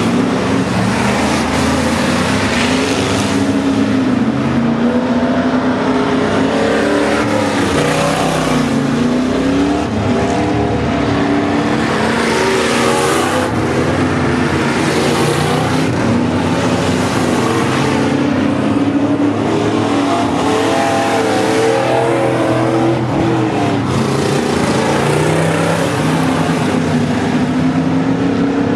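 Several V8 dirt-track stock cars racing together, their engines running hard with pitch rising and falling over and over as they accelerate and ease off.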